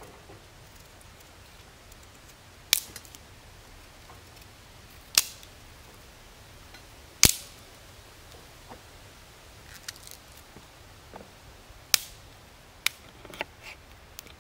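A kitchen knife knocking against a wooden cutting board as wild apples are sliced: several sharp knocks a few seconds apart, coming closer together near the end.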